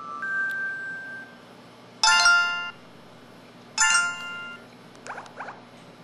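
LG-SD1500 mobile phone's built-in sound effects played one after another through its speaker. A short two-note beep comes first, then a bright chiming jingle about two seconds in and another about four seconds in.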